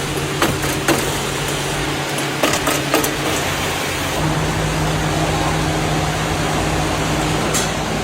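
Metalworking machinery in a cookware factory running with a steady hum and noise, broken by several sharp metallic clicks or knocks in the first three seconds and one more near the end.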